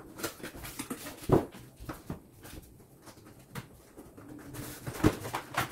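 Cardboard product box being handled and opened: light scrapes and rustles of the card with a few sharp taps, one about a second and a half in and two near the end.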